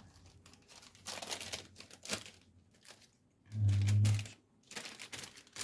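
Small plastic bag crinkling and rustling in irregular bursts as it is handled to get a miniature out, with a short low hum about three and a half seconds in.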